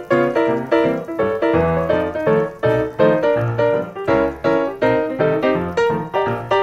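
Background music: a piano-like keyboard plays an even run of struck notes, about three a second.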